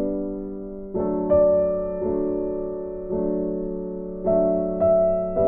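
Background music: slow, gentle piano chords, a new note or chord struck about once a second and left to ring and fade.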